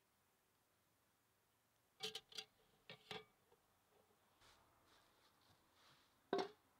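Metal kitchen utensils clinking: a few light clanks as tongs go into the Dutch oven against the ladle about two seconds in, then one louder, sharper clank near the end.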